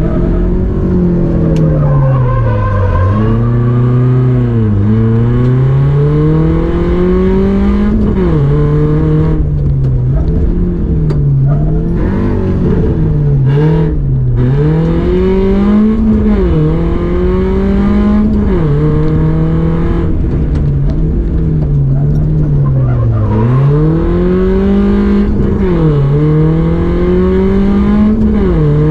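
Rally car engine driven hard through a course: its pitch climbs under acceleration and drops sharply at each gear change or braking point, over and over every two to three seconds.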